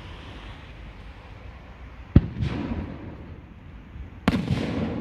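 Two aerial firework shells bursting about two seconds apart, each a sharp bang followed by a rumbling tail.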